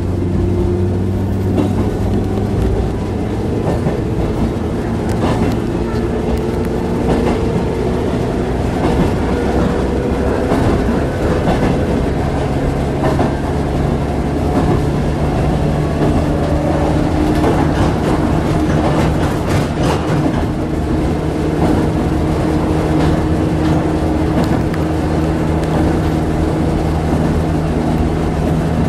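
Interior running noise of a JR West 105 series electric train moving between stations: a steady rumble and hum, with the clack of wheels over rail joints.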